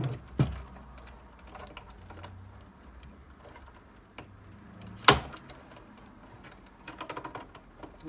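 Plastic clicks and knocks of power-supply cable connectors being unclipped and pulled out of a desktop PC's motherboard, the cables shifting against the metal chassis. There is a sharp click just under half a second in, the loudest snap about five seconds in, and a quick run of small clicks near the end.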